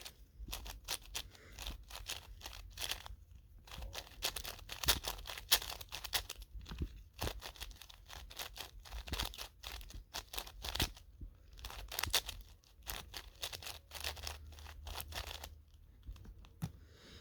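A 3x3 Rubik's cube being solved by hand: a fast, irregular run of plastic clicks and clacks as the layers are turned, with a few brief pauses.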